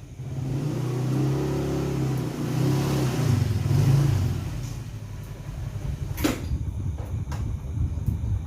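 Krisbow industrial ceiling fan running: a loud, low motor hum that comes in suddenly, then an uneven fluttering rumble of moving air. A single knock comes about six seconds in.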